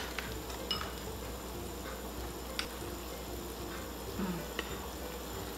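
Hot pot broth simmering in a divided stainless-steel pot: a steady quiet bubbling hiss with a few faint clicks scattered through it.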